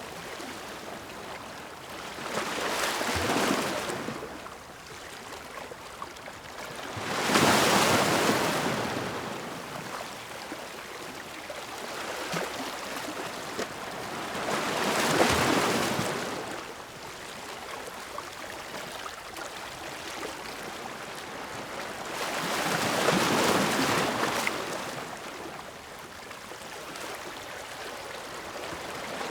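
Ocean waves breaking. Four surges of surf swell up and wash away, several seconds apart, over a steady hiss of water between them.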